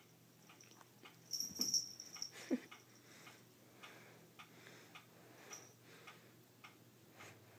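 Kittens play-fighting: faint scuffling and light taps throughout, with a louder burst of scuffling about a second and a half in and a brief squeak soon after.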